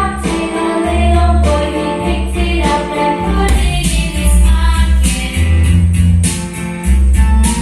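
A song with singing and a heavy, sustained bass line, played back through a stereo system with a Shakard FE6700 10-band graphic equaliser in the signal chain.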